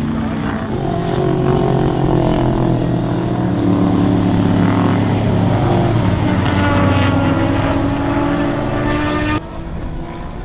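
Sports sedan race cars' engines at high revs on the racetrack, a loud steady drone that shifts a little in pitch as the cars work through the corner. It cuts off abruptly near the end to a quieter engine sound.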